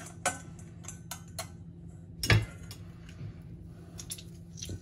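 Metal clicks and scrapes of a knife scraping crushed anchovy off a stainless steel garlic press and of the press against a metal bowl, with a louder knock about two seconds in.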